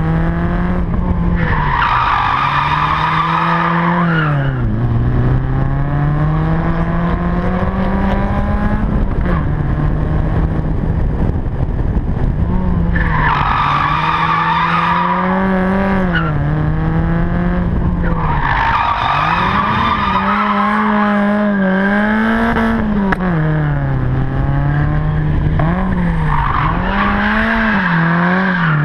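Car engine revving up and falling back repeatedly while the tyres squeal in about four long bursts as the car slides through corners on a race track, heard from a microphone on the car itself.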